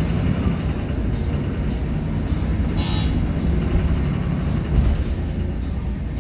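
Volvo B7RLE bus's rear-mounted six-cylinder diesel engine running, heard from inside the passenger saloon as a steady low drone. A brief sharp clink sounds about three seconds in.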